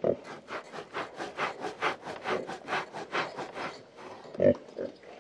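A pig grunts once. Then comes a steady run of rhythmic scratching strokes, about five a second, as a pig scratches itself. Near the end there are two more short grunts.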